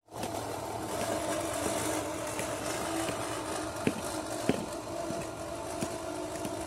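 Manual push reel lawn mower whirring steadily as it is pushed across grass, with a couple of sharp clicks near the middle.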